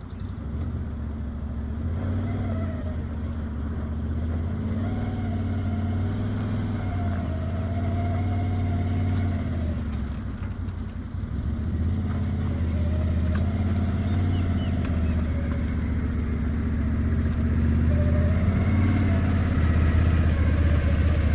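A utility vehicle's engine running as it drives, its pitch wandering up and down. It eases off briefly about halfway through, then picks up again.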